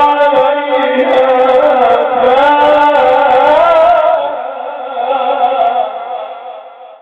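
A man's voice reciting the Quran in a melodic, drawn-out chant, holding and ornamenting a long phrase that fades out near the end.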